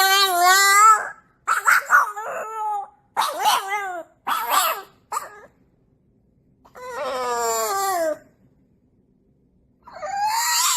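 A dog whining and howling in a series of drawn-out, wavering calls, several sliding down in pitch, with short gaps between them and a longer pause before a last call near the end.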